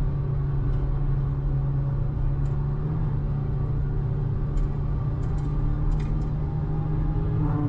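Car driving, with a steady low rumble from the engine and road.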